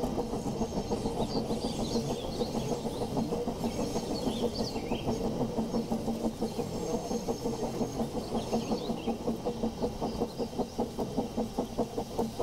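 A steady mechanical running sound with a quick, even pulse of about five beats a second, growing more distinct toward the end. Birds chirp over it.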